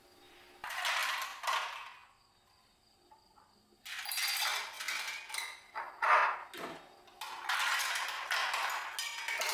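Kitchenware being handled: bursts of scraping, rustling noise with a sharp clink about six seconds in.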